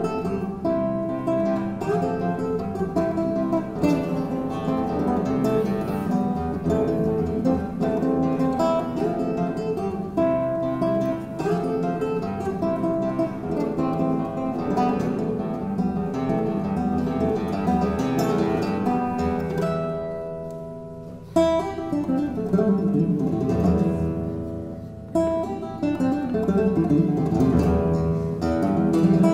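Background music: an acoustic guitar piece with plucked and strummed notes. About twenty seconds in it fades down briefly, then starts again.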